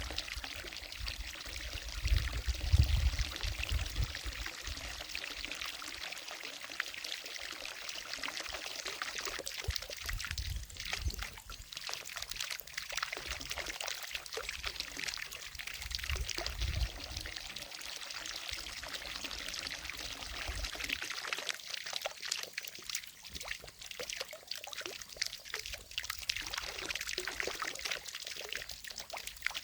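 Fountain water falling and splashing steadily into a lake, a continuous pouring, trickling hiss. Brief low rumbles come and go, the strongest about two seconds in.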